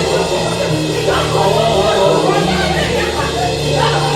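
Live church worship band playing, with sustained bass notes that change every second or so under guitar and keyboard parts.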